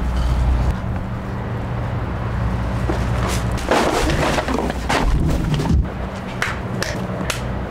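A full plastic trash bag thrown into a dumpster, landing with a rustling thump about four seconds in, followed by a few sharp knocks. A steady low rumble runs underneath.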